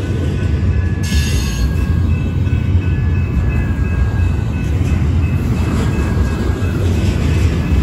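BNSF freight train rolling past: a steady low rumble of cars on the rails with thin high wheel-squeal tones over it, and a short hiss about a second in.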